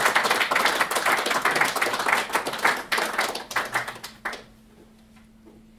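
A group of people applauding, dense hand-clapping that cuts off suddenly about four seconds in.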